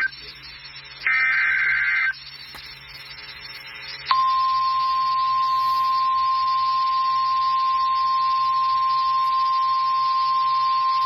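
Emergency Alert System activation on NOAA Weather Radio. A digital SAME header data burst lasts about a second, then comes a short gap of radio hiss. From about four seconds in, the steady single-pitch 1050 Hz warning alarm tone sounds, which marks a warning-level alert, here a severe thunderstorm warning.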